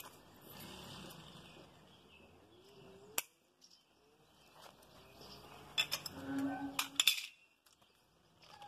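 Side-cutting pliers snip through nylon trimmer line on a Stihl AutoCut 46-2 mowing head: one sharp snip about three seconds in, then a quick run of smaller clicks near six to seven seconds.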